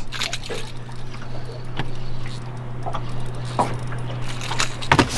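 Water trickling and sloshing around a small fishing boat over a steady low hum, with scattered light clicks; the hum stops near the end.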